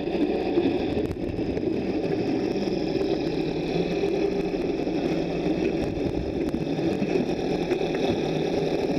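Underwater rotary polishing disc running against a ship's propeller blade, a steady mechanical whir heard through the water.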